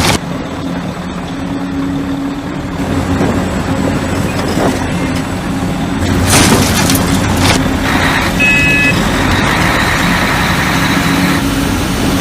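A heavy diesel engine running steadily, like a truck or construction machine. There is a loud burst of air hiss about six seconds in, like an air brake releasing.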